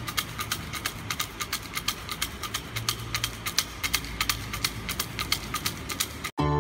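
Siam si fortune sticks rattling in a cylindrical cup shaken back and forth by hand: a fast, even run of sharp clacks, about five or six a second, breaking off suddenly near the end.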